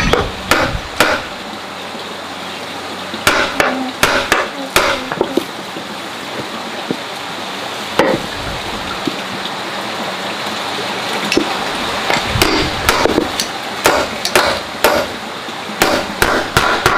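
Irregular clusters of sharp knocks and taps, like hand-tool work, over a steady background hiss.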